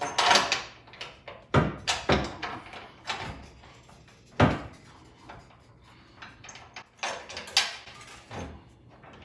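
Metal hitch mounting bracket knocking and scraping against a pickup truck's steel frame as it is worked into position by hand. There is a series of irregular clanks and short scrapes, with the sharpest knock about four and a half seconds in.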